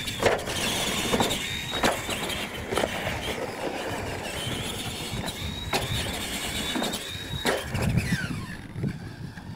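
Electric motors of radio-controlled monster trucks whining at high pitch as they race, the whine rising as they accelerate, held near its top, then cutting off and falling away. Several sharp knocks come through the whine.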